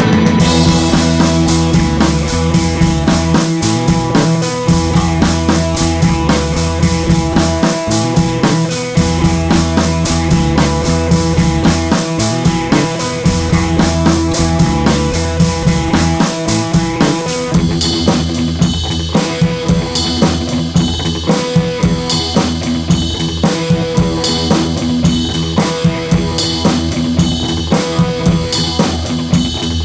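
Background music with a drum kit keeping a steady beat; the arrangement changes about eighteen seconds in.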